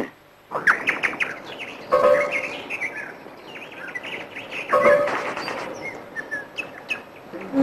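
Birds chirping and twittering in many quick calls, with a brief steady pitched note cutting in about two seconds in and again near five seconds.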